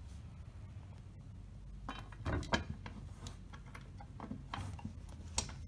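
Scattered light clicks and knocks of metal parts as a button press frame and its bolts are handled against the base plate. The clicks start about two seconds in and come a few at a time, with a faint room hum under them.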